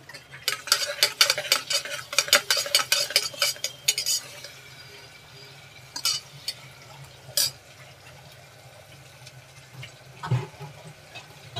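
Metal ladle stirring onions frying in ghee in a pressure cooker: quick clinks and scrapes against the pot for the first four seconds, then a few single knocks over a faint sizzle.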